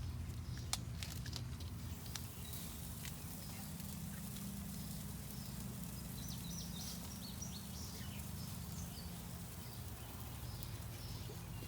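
Small backyard birds chirping in short, high calls, mostly in the second half, over a steady low hum, with a few sharp clicks in the first few seconds.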